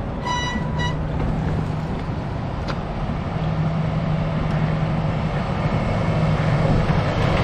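Concrete mixer truck's diesel engine running steadily as it approaches, growing louder, over road traffic noise. Two short beeps sound about half a second in.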